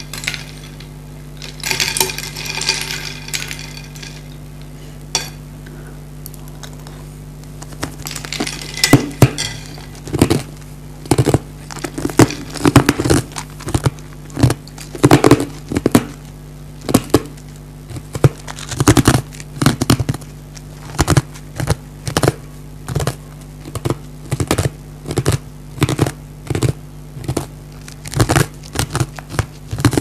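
Ice cubes chewed and crunched close to the microphone, in sharp crunches about one to two a second through the second half. Near the start, a metal ladle clinks against ice cubes in a glass bowl. A steady low hum runs underneath.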